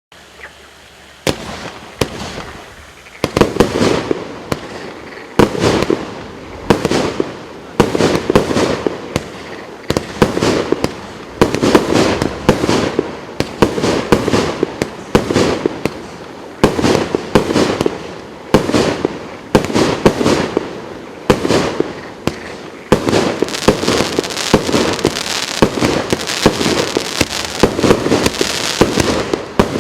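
Hot Ice GWM5038 fireworks battery (cake) firing: about a second in it starts sending up shot after shot, each a sharp bang, one or two a second. Near the end the crackling between the shots thickens into an almost continuous crackle.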